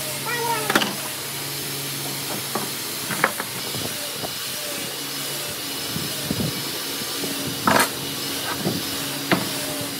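Woodworking workshop machinery running with a steady hiss and low hum, broken by several sharp knocks, the loudest about three-quarters of the way through.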